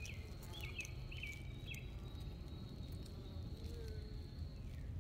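Honey bees humming at an open hive, a steady low drone. A few short high chirps sound about half a second apart in the first two seconds.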